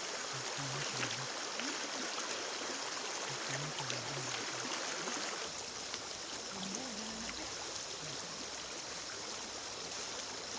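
Steady rushing water: an even, unbroken hiss, from heavy rain or a fast river. The low end of the sound shifts slightly about five and a half seconds in.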